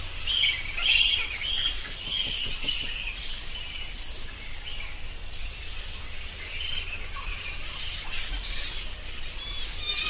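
Bats calling: a run of short, high-pitched squeaks and chirps that come in irregular clusters.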